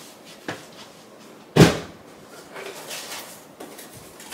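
Household handling sounds: a light click, then a single loud, sharp knock about a second and a half in, followed by softer rustling and shuffling.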